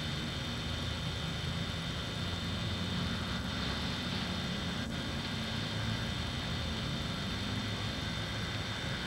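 A steady low hum with hiss, and a faint click about five seconds in.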